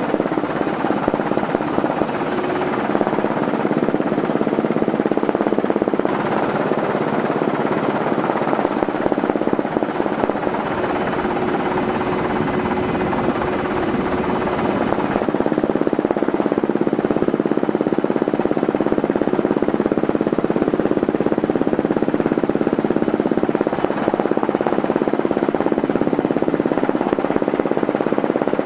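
Helicopter rotor and engine noise heard from aboard the aircraft: a loud, steady, rapid chopping that does not let up.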